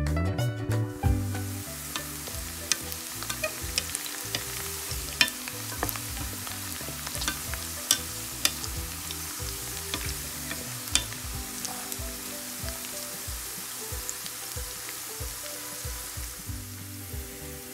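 Sliced garlic frying in hot oil in a pan: a steady sizzle with scattered sharp pops, stirred with a wooden spatula.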